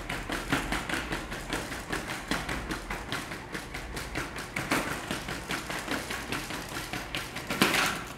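Solo12 quadruped robot's feet tapping on foam floor mats in a quick, even stepping rhythm, about four steps a second, as it steps to keep its balance. Near the end comes a louder clatter as the robot drops onto the mat.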